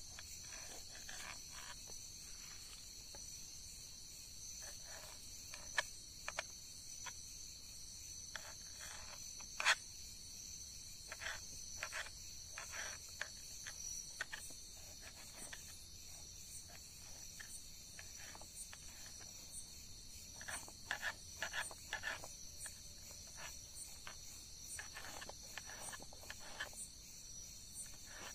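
A knife chopping tomato on a wooden cutting board: irregular taps of the blade on the board, a few of them sharper. Crickets chirp steadily behind it.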